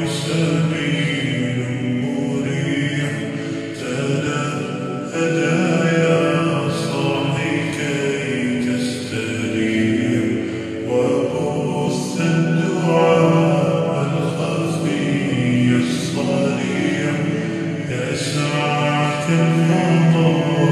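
Arabic nasheed played slowed down with heavy reverb: held, drawn-out vocal notes sung together in a choir-like chant.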